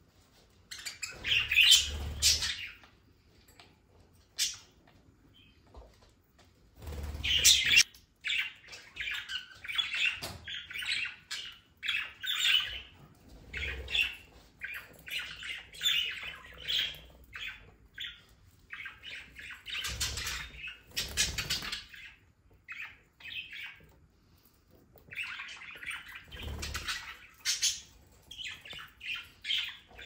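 A flock of budgerigars chattering with quick, scratchy chirps and warbles, broken several times by short bursts of wing-flapping as birds fly between perches.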